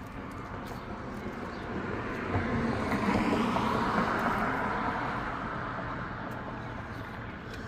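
A vehicle passing by, its noise swelling to a peak about three to four seconds in and then fading away.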